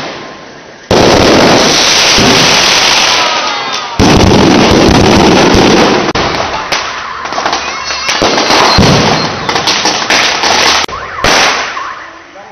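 Fireworks going off at close range. A sudden loud bang about a second in and another at four seconds are each followed by several seconds of dense crackling and hissing, with a few whistles after the first. Quicker crackles and pops follow in the second half.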